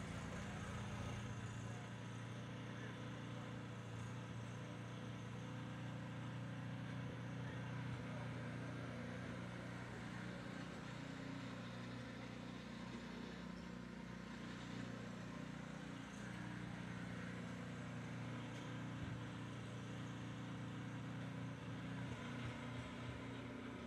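Walk-behind snowblower engine running steadily as it clears snow, a constant even drone.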